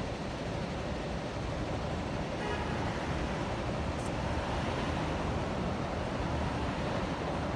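City street traffic: steady road noise from passing cars, growing a little louder about three seconds in as a car drives past close by.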